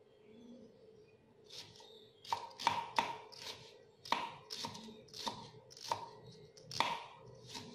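Small kitchen knife slicing a shallot on a round wooden chopping board: a string of sharp knocks about two a second as the blade cuts through and taps the board, starting about two seconds in.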